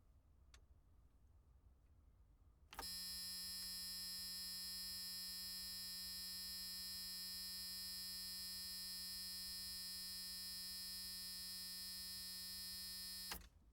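Electric buzzer sounding one long, steady, harsh buzz of about ten seconds, starting about three seconds in and cutting off sharply near the end.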